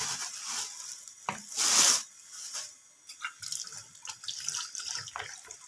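Water from a kitchen tap gushing in a short burst about a second and a half in, then scattered drips and small splashes in a stainless steel sink as raw chicken pieces are rinsed in a plastic bowl.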